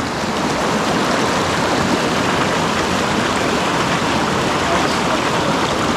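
Steady rush of water from a rain-swollen creek, an even, unbroken noise.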